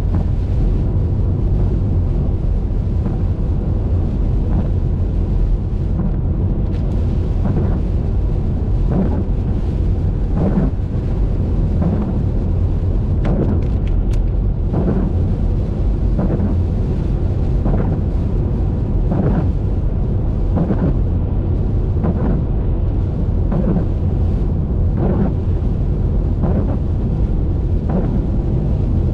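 Car driving in the rain: a deep, steady road and engine rumble with a soft swish about every one and a half seconds, the sweep of the windscreen wipers.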